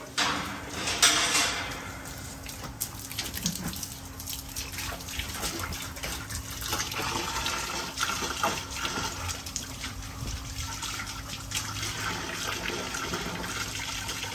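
Water from a hose pouring and splashing into a dog's water bucket as it fills, with louder gushes about a second in.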